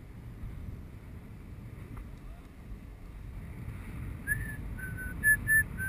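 Wind rushing over the camera microphone while descending under a round parachute canopy. Near the end come four or five short, high-pitched tones, louder than the wind.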